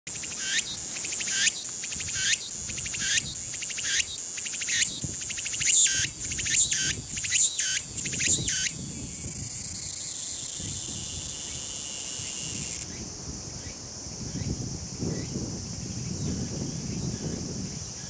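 Meimuna opalifera (tsukutsukuboshi) cicada singing: a loud, high-pitched phrase repeated about once a second that speeds up over some eight seconds, then runs into a continuous buzz that stops abruptly about four seconds later.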